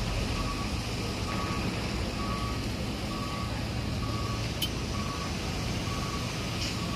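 A reversing alarm beeping steadily, a short single-tone beep about once a second, over a low continuous engine rumble. A single faint click about two-thirds of the way through.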